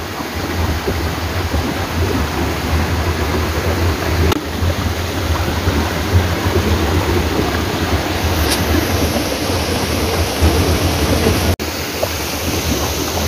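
Rocky mountain stream rushing over boulders: a steady, loud water noise with a strong low rumble underneath.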